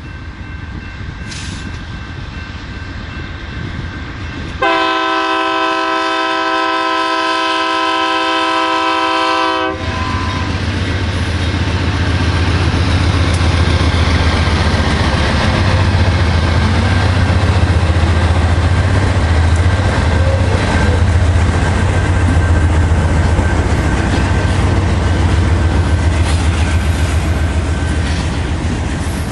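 Freight train at a road crossing: the lead BNSF GE diesel locomotive sounds one long horn blast of about five seconds, starting about five seconds in, as its crossing warning. The locomotives then pass with a loud, deep engine rumble, followed by freight cars clattering over the rail joints.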